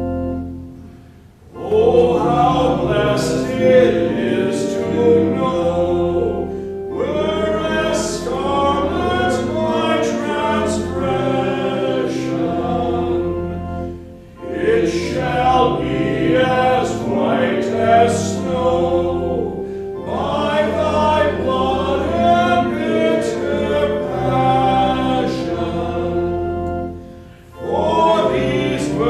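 A church organ chord fades out about a second in, then voices sing a hymn with organ accompaniment, in long phrases with two short breaks between lines.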